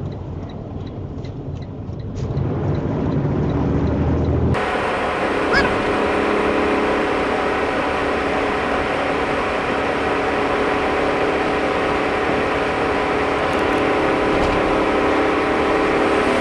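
Truck cab noise while driving on a highway: a low engine drone with road noise. About four and a half seconds in the sound changes abruptly to a louder, steady road noise with several steady engine tones running under it.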